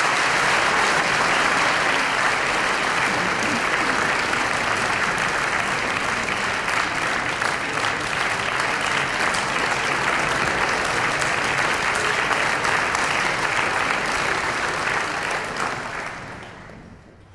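Concert-hall audience applauding steadily, the clapping dying away near the end.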